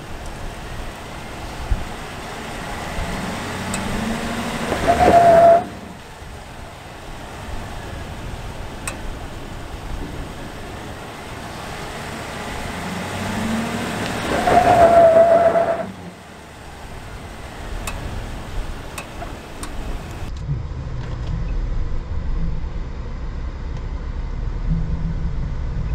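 2022 Chevrolet Silverado ZR2's 6.2-litre V8 pulling hard twice, each time building over a few seconds and then backing off suddenly, with the engine running low in between; the truck is struggling for grip on a steep rock climb.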